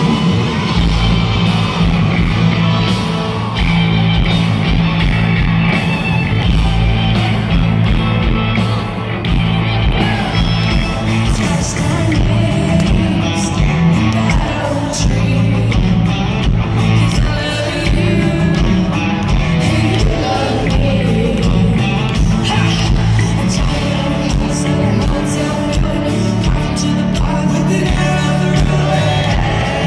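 Live country-rock band playing through an arena PA: electric guitars, drums and heavy bass, with a woman singing lead. The full band comes in about a second in, with the hall echoing around it.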